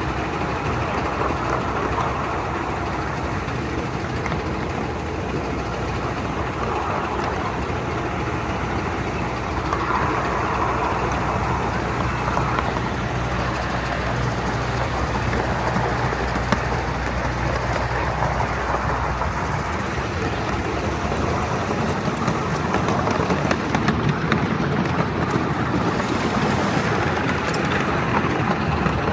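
Steady rumble and rail noise of a 7¼-inch gauge miniature steam train with the locomotive Tom Thumb, heard from aboard the train. A low hum under it drops away about two-thirds of the way through.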